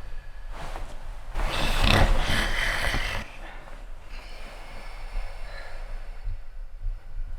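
A man snoring in his sleep. One long, loud snore runs from about a second and a half in to about three seconds, with shorter, quieter snores and breaths around it.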